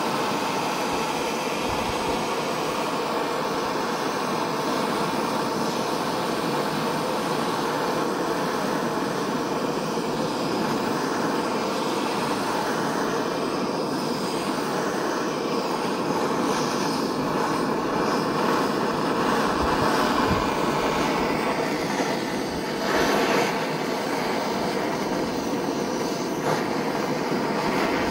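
Hand-held propane torch burning with a steady hiss, its flame held on a slice of bread, wavering briefly a little over twenty seconds in.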